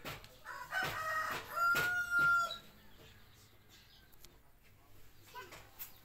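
A rooster crowing once, starting just under a second in and ending on a long held note.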